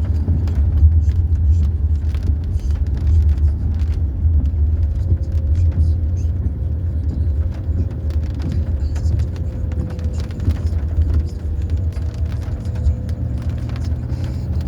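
Low, steady car rumble from inside the cabin, with many short knocks and rattles from driving over a rough, stony road. A faint steady whine joins from about five seconds in.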